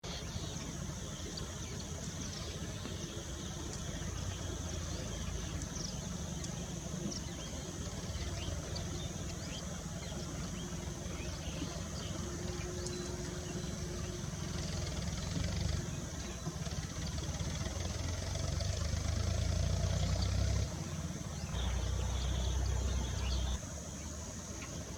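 Vehicle engine idling with a steady low rumble that grows louder in the second half and drops back near the end, with short high bird chirps here and there over a steady high-pitched drone.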